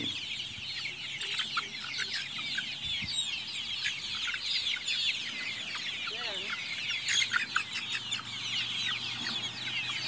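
A flock of month-old native chickens peeping and chirping continuously, many short high falling chirps overlapping.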